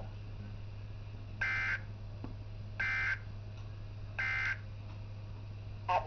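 NOAA Weather Radio EAS/SAME end-of-message data bursts through a Midland WR-100 weather radio's speaker: three short, identical warbling digital chirps about a second and a half apart, marking the end of the blizzard warning message. A steady low hum runs underneath.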